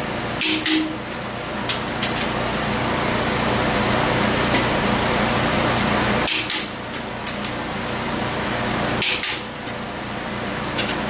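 Click-type torque wrench breaking over as cylinder head bolts reach their set torque of about 140: three sharp double clicks, roughly three seconds apart, over a steady background hum.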